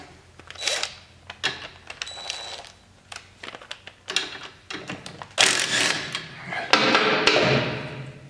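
Cordless impact driver loosening bolts on an ATV's rear suspension, in two runs of about a second each past the middle, with clicks and clinks of tools and sockets before them.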